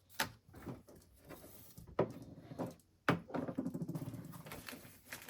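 Packaging and paper inserts handled by hand: three sharp taps, then about two seconds of rustling.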